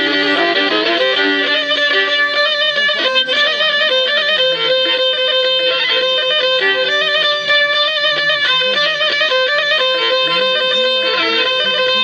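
Black Sea kemençe, the small three-stringed bowed fiddle of the Turkish Black Sea coast, played solo with a bow: a quick, unbroken run of notes in a lively folk tune.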